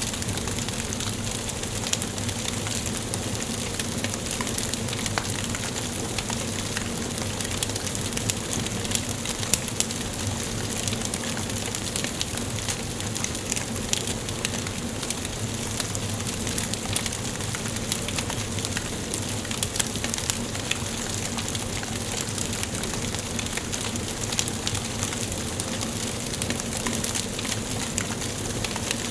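Wood fire burning in a fireplace: a steady hiss of flames with many small crackles and pops from the burning logs, a couple of louder pops about a third of the way in.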